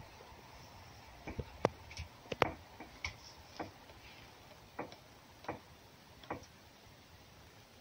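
Fox chewing food, making sharp, irregular clicks about one every half second to a second.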